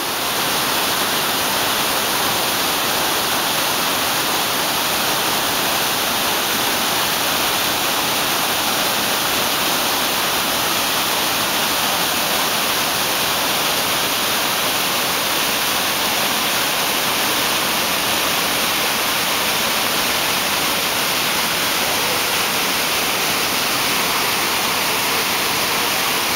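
The Potomac River's Great Falls at high water: whitewater cascading over and through a rocky chute, a loud, steady rush.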